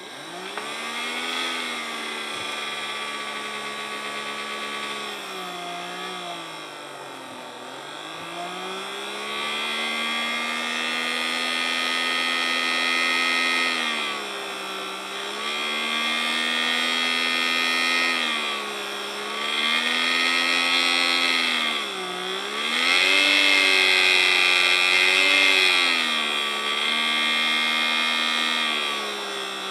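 Small DC motor running off a bench power supply, whining as it spins up at the start. Its pitch then dips and recovers about five times.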